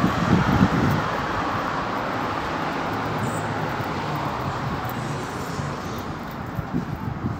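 Road traffic noise from a passing car, tyre and engine noise fading slowly as it draws away. A few low bumps come near the start and again near the end.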